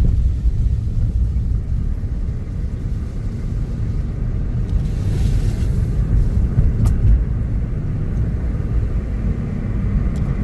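Car driving: a steady low rumble of engine and road noise. About halfway there is a brief hiss, and a sharp knock comes a little later.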